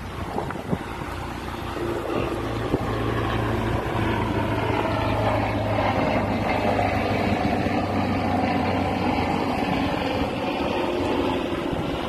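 Motorboat engine running steadily, growing louder about two seconds in and then holding, over a background wash of wind and sea.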